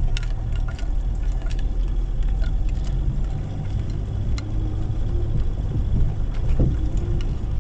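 Toyota Hilux pickup driving slowly over a muddy, rutted woodland track, heard inside the cab: a steady low engine and tyre rumble with scattered small knocks and clicks from the truck jolting over the ruts.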